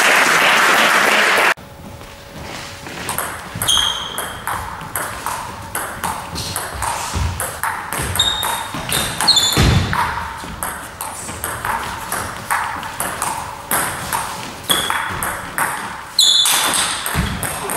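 Table tennis rally: the ball clicking back and forth off bats and table in a long series of sharp ticks, with a few short shoe squeaks on the hall floor. A loud rush of noise cuts off abruptly about a second and a half in and returns near the end.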